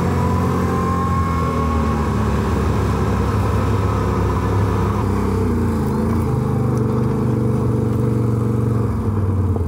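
Can-Am Renegade 1000R quad's V-twin engine running under way, its pitch rising and falling with the throttle, over steady wind and road noise.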